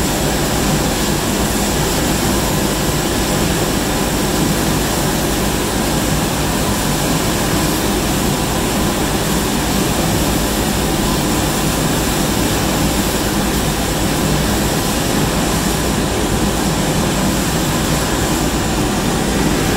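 Finish Line sheet-metal sanding machine running steadily as a perforated metal panel feeds through it on its conveyor belt: an even, loud hum and hiss that does not change.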